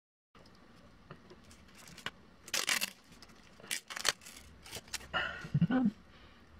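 A tattoo bandage being peeled off skin, giving several separate scratchy tearing and crinkling noises, with a short low sound near the end.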